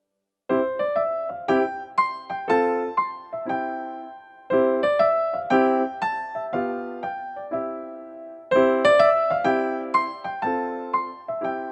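Piano music: a gentle melody of struck, fading notes in phrases that repeat about every four seconds, starting about half a second in after silence.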